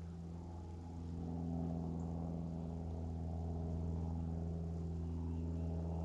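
A steady low engine hum at idle, holding one pitch and growing a little louder about a second in.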